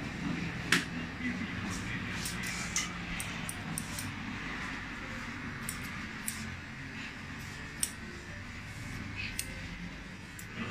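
Barber's steel scissors snipping hair, a scattered series of short sharp snips a second or so apart, over a steady low background hum.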